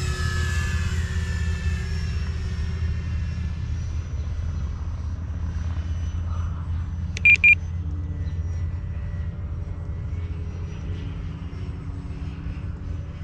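Electric radio-control airplane's motor and propeller whining overhead, the pitch falling over the first few seconds as it flies past, over a steady low rumble. Two short beeps come about seven seconds in.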